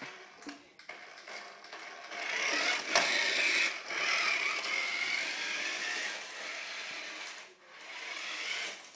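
Small electric motor and gearbox of a toy RC car whining as the car races across a wooden floor close by, loudest as it passes near, with one sharp knock about three seconds in.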